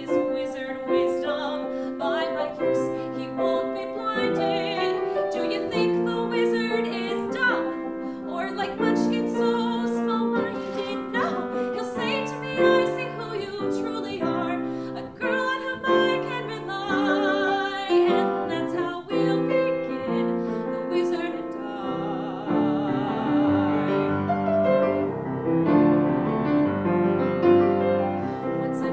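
A woman singing a musical-theatre song with grand piano accompaniment, her held notes carrying a clear vibrato.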